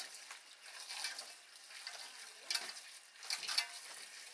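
Water pouring from a spout into a metal bowl while hands rub and swish the contents to wash them, with several louder splashes.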